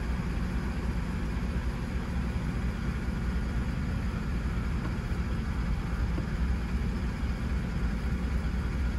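2014 Chevrolet Silverado's V8 idling steadily, heard from inside the cab.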